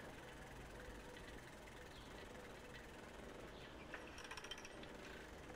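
Quiet outdoor ambience with a low steady hum, faint scattered bird chirps and a quick run of small clicks about four seconds in.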